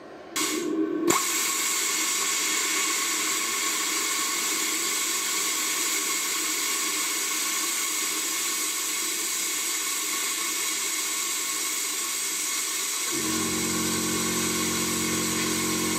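Ideal Praktik 40 plasma cutter at 30 amps cutting into an 8 mm copper bar: air starts to hiss, a sharp click about a second in as the arc strikes, then a steady loud hiss of the plasma arc. At this setting it burns only 2–3 mm into the copper. A low, steady multi-tone hum joins about 13 seconds in.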